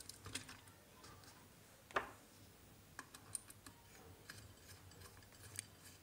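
Faint scattered clicks and taps of a wire and screwdriver against a brass screw terminal and the plastic plate of an electrical switchboard being wired. The sharpest click comes about two seconds in.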